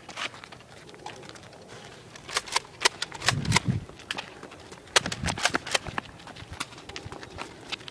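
Toy foam-dart blasters firing and being worked during a Nerf fight: sharp snaps and clicks at irregular spacing, thickest in the middle. Two dull low thumps come about three and a half and five seconds in.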